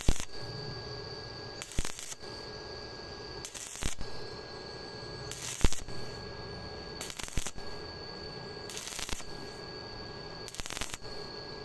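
Arc welding on thin hollow iron in short stitch or tack bursts, each a fraction of a second, about every one and a half to two seconds. A steady high whine runs under the bursts.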